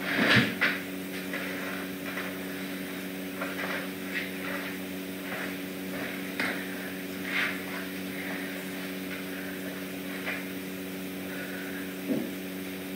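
Steady electrical hum in the room, with scattered light knocks and rustles over it. A louder knock comes just after the start.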